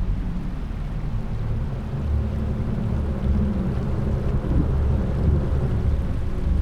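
A deep, low rumble, with its sound mostly in the bass.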